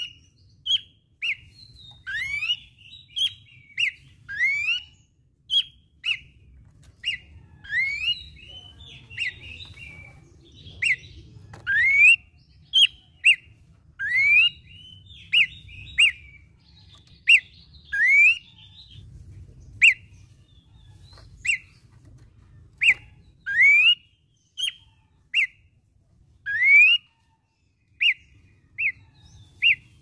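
Horsfield's babbler (pelanduk semak) singing steadily: a run of short, clear whistles, many sweeping sharply upward, about one a second.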